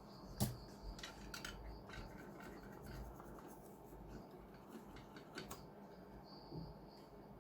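Circuit board being washed with alcohol after soldering: quiet scratching and rubbing of a brush on the board, with scattered clicks and a sharp click about half a second in.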